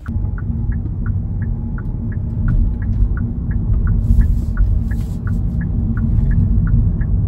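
Rumble of engine and road noise inside a Kia's cabin as it pulls away through a turn, with the turn signal ticking steadily about three times a second.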